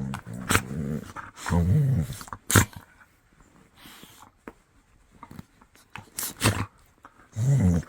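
A dog growling in three low, drawn-out rumbles, with a few sharp clicks or knocks in between.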